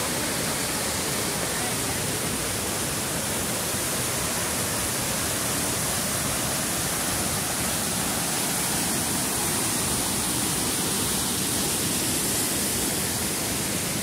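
Steady rushing noise of a waterfall, falling water pouring without pause.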